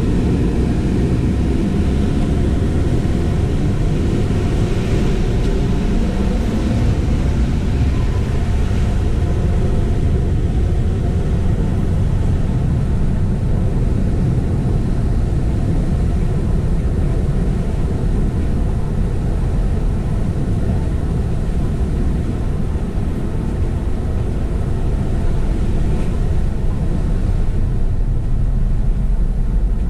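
Steady low rumble of ocean surf breaking on the beach, holding an even level throughout.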